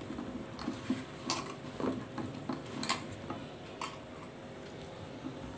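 Hands mixing chopped raw mango pieces in a stainless-steel bowl: soft shuffling of the pieces with a few sharp clinks against the bowl's metal side.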